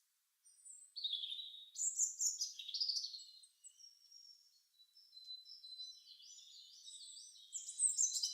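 Small birds chirping and singing in high, quick notes, starting about half a second in, with a run of repeated rising notes in the second half.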